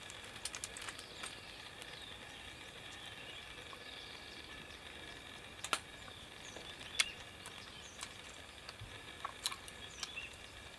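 Quiet background with a faint steady high-pitched ringing and a handful of sharp clicks, the loudest about six and seven seconds in.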